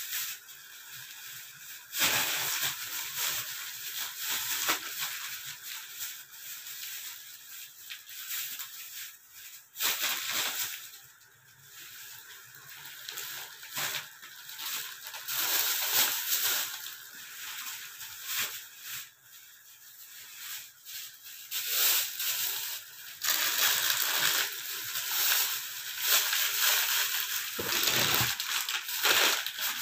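Thin clear plastic grocery bags rustling and crinkling as items are packed into them and the bags are handled. The noise comes in irregular bursts, with a long, busier stretch in the last third.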